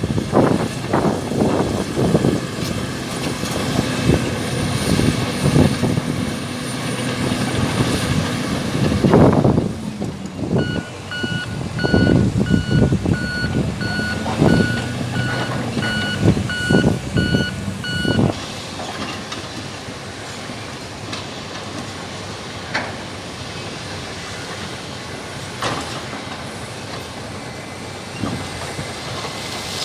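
Heavy mining machinery running, with rock clattering and knocking through the first half. From about ten seconds in, a reversing alarm beeps about twice a second for some eight seconds, then stops. The engines then run on more quietly.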